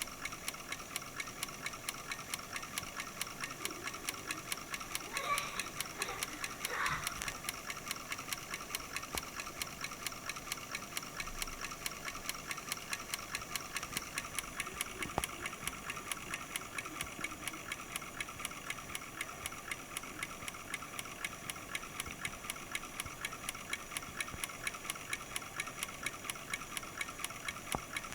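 Vacuum cleaner's brushed commutator motor running slowly, ticking evenly about five or six times a second over a steady high whine, with two brief louder rustles about five and seven seconds in. The ticking goes with the carbon brush lifting and dropping on the commutator bars of a rotor whose geometry is out of true, which the owner takes for the cause of heavy brush sparking at full speed.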